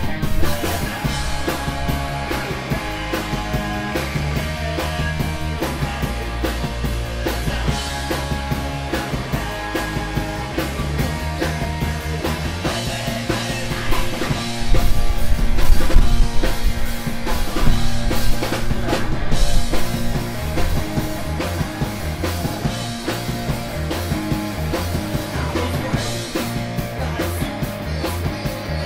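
Rock band playing live: electric guitars, bass, drums and a singer, with a louder stretch for a few seconds about halfway through.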